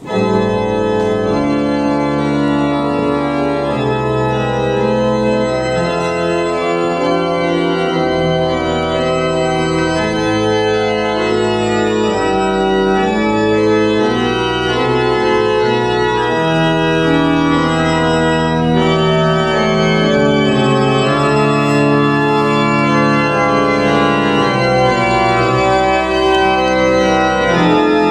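Church organ playing music in full, sustained chords over a moving bass line, starting suddenly at full volume.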